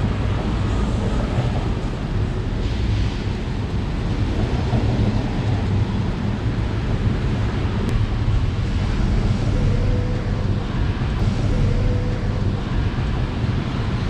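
Steady low hum of a honey bee colony on an open hive frame, mixed with a rumble like wind on the microphone.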